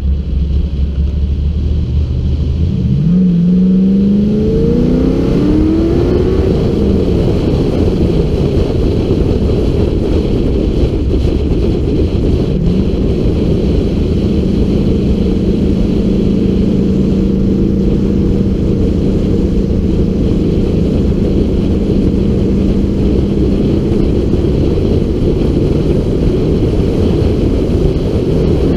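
LS1 V8 engine of an FD Mazda RX-7 pulling up through the revs about three seconds in and again around twelve seconds, then holding a steady cruise, over a constant rush of wind and road noise.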